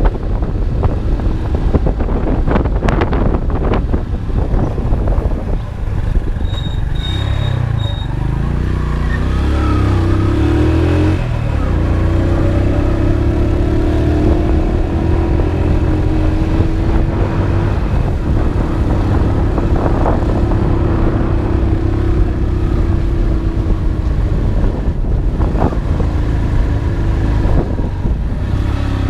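Motorcycle ridden along a road, its engine running steadily under a rush of road and wind noise, with other traffic around.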